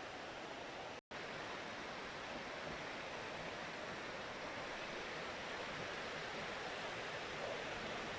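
Waterfall water flowing fast and strong, a steady, even rushing hiss. It cuts out for an instant about a second in.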